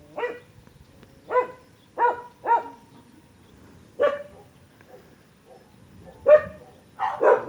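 A dog barking: about seven short, fairly high-pitched barks at uneven intervals, the last two coming close together near the end.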